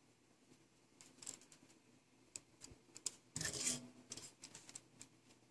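Light handling clicks and ticks of small parts and tools at a soldering bench: a solder spool, a resistor and the soldering iron being picked up. There is a louder scraping rustle about three and a half seconds in.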